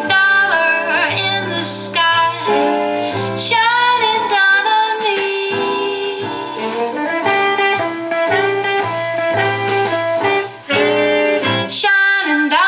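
Recorded song playing through a 6B5 single-ended valve amplifier and an Isophon oval front-magnet speaker, here in an instrumental passage between sung lines, with a melodic lead over accompaniment.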